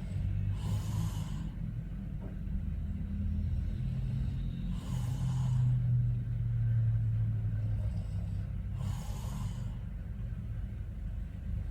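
A man snoring in his sleep: a continuous low snore, with a breathy hiss roughly every four seconds, three times.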